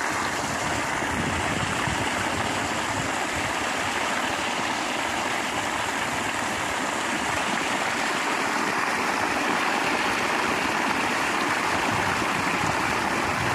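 Water gushing steadily from a hose outlet and splashing into a water-filled hole in the ground.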